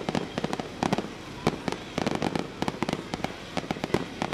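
Aerial fireworks going off: a dense, irregular run of crackling pops with louder bangs scattered through it.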